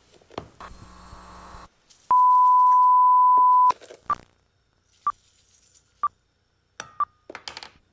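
A brief clatter of kitchen utensils, then a loud steady electronic beep lasting about a second and a half. It is followed by four short beeps about a second apart.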